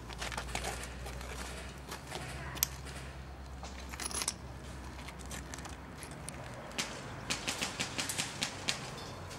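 Airsoft guns firing: a few single sharp snaps, then a quick string of about nine snaps at roughly five a second near the end.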